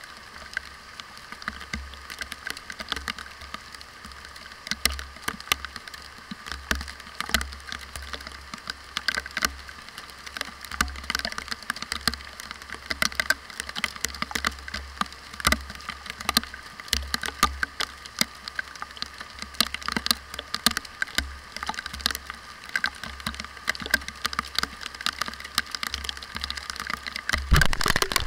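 Steady rain heard through an action camera's waterproof housing, with dense, irregular taps of raindrops striking the case itself over a hiss of rain on the ground. Just before the end, louder low bumps as the camera is moved.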